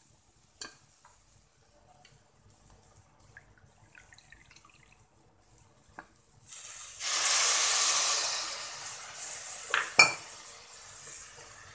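A small bowl of water poured into a hot pressure cooker of fried, spiced beans and potatoes, hissing and sizzling loudly for about three seconds as it hits the hot oil and metal, then dying down to a softer sizzle. A sharp clink on the metal pot near the end, after a few faint ticks earlier.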